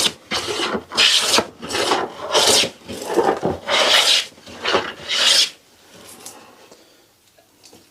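Hand plane shaving a wooden board in about nine short, quick strokes, each a rasping scrape of the blade cutting across the wood, stopping about five and a half seconds in.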